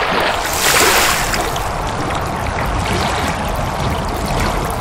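Steady rushing, splashing water sound effect, with a louder hissing splash about a second in.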